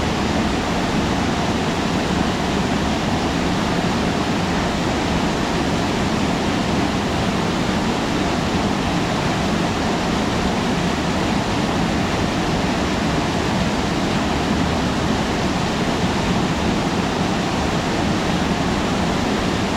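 Waterfall pouring steadily, a dense, even rush of falling water.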